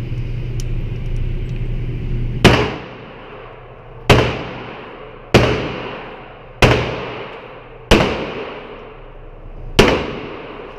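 Six handgun shots fired in a steady string, about one every second and a half, each with a short ringing tail.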